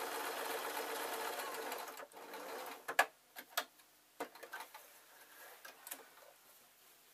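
Sewing machine stitching a straight seam along a skirt's zip, running steadily and stopping about two seconds in. It is followed by a few sharp clicks and handling sounds, the loudest about three seconds in.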